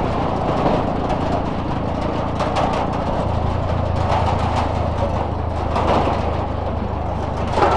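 Motorcycle engine running steadily under road and wind noise; a steady low engine hum settles in about three seconds in.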